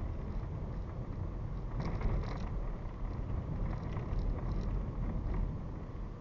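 Car driving along a road: steady low rumble of tyres and engine, with a few short clicks or rattles about two seconds in and again a couple of seconds later.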